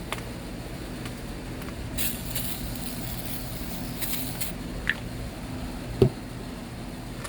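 Short hissing bursts from an aerosol can of cooking oil being sprayed, over a steady low hum, with a sharp knock about six seconds in.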